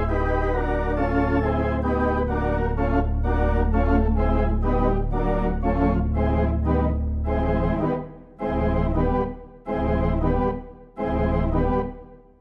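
Organ music: held chords over a steady bass note, then, from about eight seconds in, short separate chords with pauses between them.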